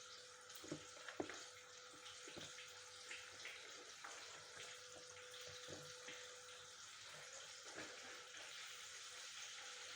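Chicken drumsticks frying in hot oil, heard as a faint, steady sizzle with a few light clicks and pops. A faint steady hum stops about two-thirds of the way through.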